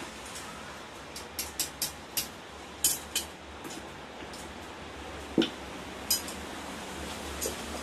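Small metal pieces and tools clinking and tapping: a string of sharp clinks, quick in the first three seconds and then sparser, with a duller knock about five and a half seconds in.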